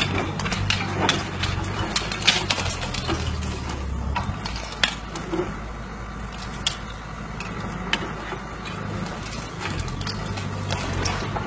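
Wheeled excavator's diesel engine running steadily while its bucket breaks into an old stone wall. Frequent sharp cracks and knocks of masonry breaking and falling come thick in the first few seconds, then more sparsely.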